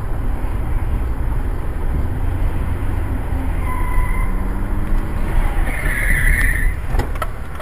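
Steady low road and engine rumble inside a moving car, picked up by a dashcam microphone as the car slows in traffic, with a brief hiss about six seconds in and two sharp clicks just after.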